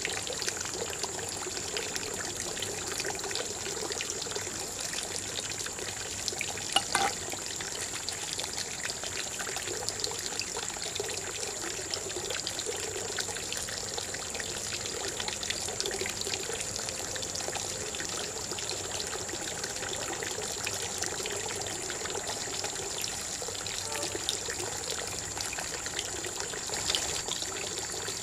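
Running water of a small stream flowing steadily, with a steady high-pitched whine over it and a sharp knock about seven seconds in.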